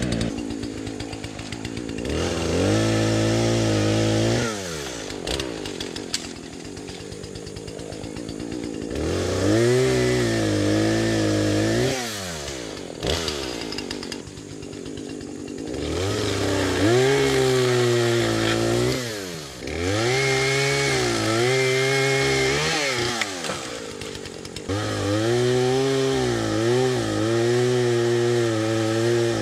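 Gas chainsaw limbing a felled tree: the engine revs up into a cut five times, its pitch wavering under load, and drops back to idle in between.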